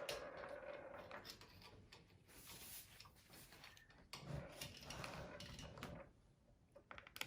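Near silence: faint scraping of a small Phillips screwdriver turning out the hard-drive bracket screws in a laptop, with a few light clicks near the end.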